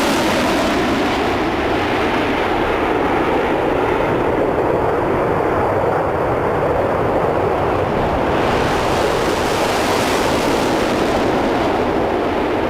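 Concorde's Rolls-Royce Olympus 593 turbojets at full takeoff power with afterburners lit, a loud, steady jet roar. Its high hiss fades for a few seconds in the middle and returns near the end.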